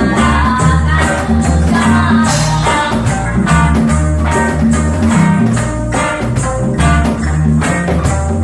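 Live reggae band playing: a heavy bass line under plucked strings, with a steady beat marked by tambourine-like percussion.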